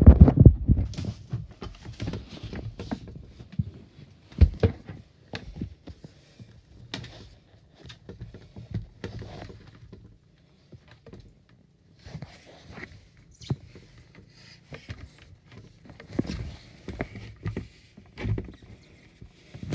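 Irregular knocks, clicks and rustling of something being handled, with a loud thump at the start.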